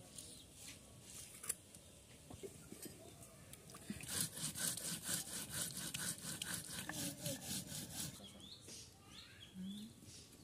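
Stone roller rubbed rapidly back and forth over a flat grinding stone (sil-batta), grinding spices: quick, rhythmic scraping strokes that start about four seconds in, after a few light clicks.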